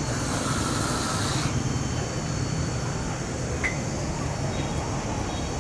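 Steady outdoor background noise: a low rumble under a constant high hiss, with a brief burst of hissing in the first second and a half.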